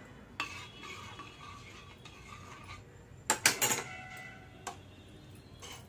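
Kitchen crockery and cutlery being handled: a bowl and plates knocked and set down and a steel spoon laid on a plate, giving several clinks that ring briefly. The loudest is a quick cluster of clinks about three and a half seconds in.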